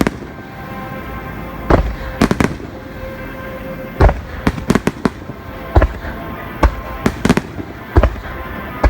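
Fireworks shells bursting overhead: about a dozen sharp bangs at irregular intervals, some in quick pairs, with faint steady music underneath.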